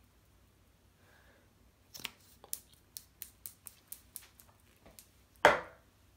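Makeup items clicking and tapping as they are picked up and handled, a quick run of light clicks about three to four a second, then one loud knock near the end.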